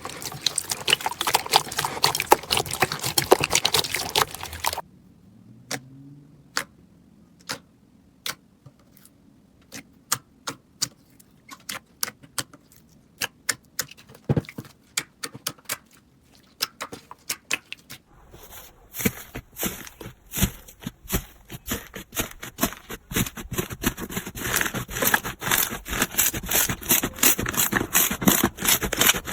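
Slime being squeezed and pressed by hand, with dense crackling and popping. About five seconds in it thins to scattered single pops and clicks, and it turns dense again near the eighteen-second mark.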